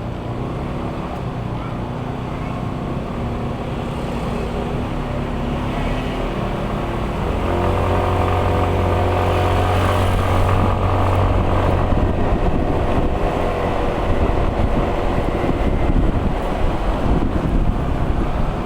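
An engine running steadily, growing louder about seven seconds in and staying loud.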